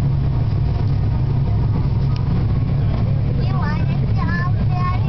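John Deere 9560 tractor's diesel engine running steadily, heard from inside the cab as a loud, even low drone.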